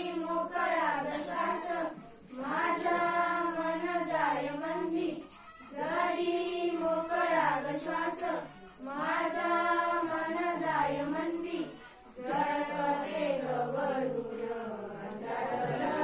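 A group of schoolchildren singing a Marathi awareness song (prabodhan geet) together, in phrases of about three seconds with short pauses for breath between them.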